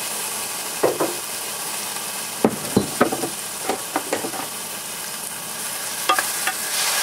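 Sliced shiitake mushrooms sizzling in hot oil in a stainless steel pan, a steady hiss. Scattered knocks and clinks come over it, and near the end a spatula stirs and scrapes the pan.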